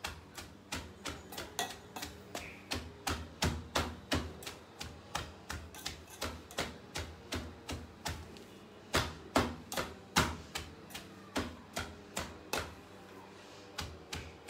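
Shallots and green chillies being crushed in a steel vessel: a steady run of sharp knocks, about three a second, some louder than others.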